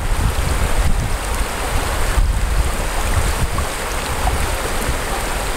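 Shallow river rapids rushing steadily over rocks, with wind buffeting the microphone in a low, fluttering rumble.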